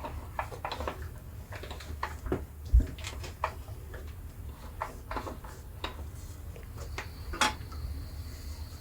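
Irregular light clicks and metallic clinks of hands working on a bandsaw while a new blade is fitted over its wheels, with a louder knock about three seconds in and another a little before the end.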